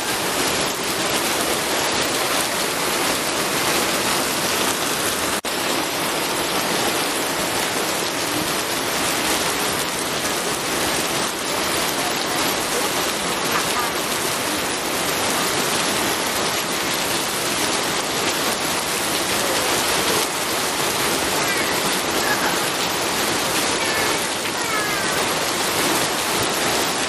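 Rain falling steadily: a dense, even hiss with no thunder.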